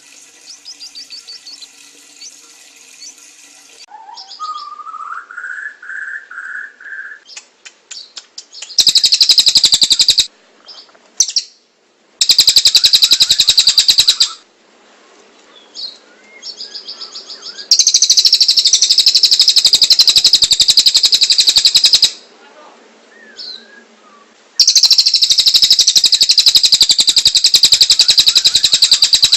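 A tengek cililin songbird singing in long, very fast, high-pitched trills, each lasting a few seconds and repeated four times with short pauses between, with a brief rising whistle a few seconds in. It is a masteran recording, used as a song model for training other cage birds.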